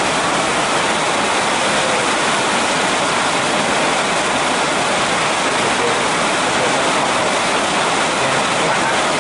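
TechDuc BL1-H brake lathe running with a brake disc rotor on its arbor: a steady, even hiss that does not change.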